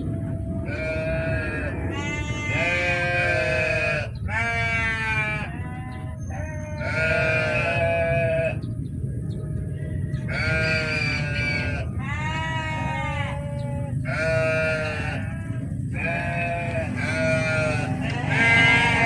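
Small farm animals bleating: a dozen or more quavering calls from several animals at different pitches, one after another with short gaps. A steady low rumble runs underneath.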